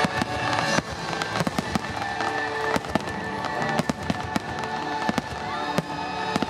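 Fireworks going off in an irregular string of sharp bangs and cracks, a few each second, over the show's music.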